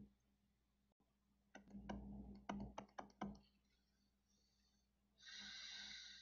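Faint clicks of a stylus tapping on a tablet or touchscreen while handwriting, a quick cluster of about eight ticks around the middle. A faint hiss follows near the end.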